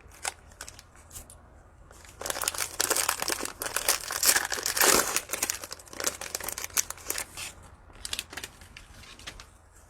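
Cellophane wrapper of a trading-card cello pack being torn open and crinkled. A few crackles come first, then about five seconds of dense crinkling, then scattered crinkles and clicks.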